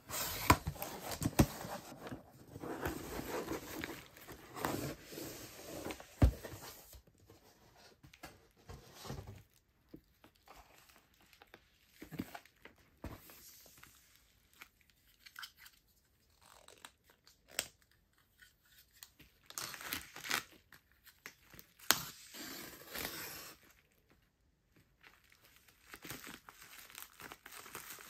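Hands unpacking a cardboard box: cardboard flaps rustling and clear plastic wrap crinkling and tearing, in short bursts with quiet gaps and a few sharp taps.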